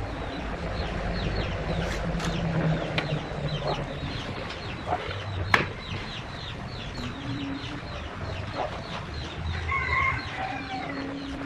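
Chickens clucking, with a run of quick, high, falling chirps through most of it and a few sharp knocks.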